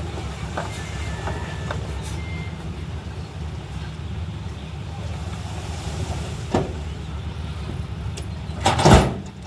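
Diesel engine of heavy earthmoving machinery running steadily, with a few sharp knocks and a louder clatter about nine seconds in.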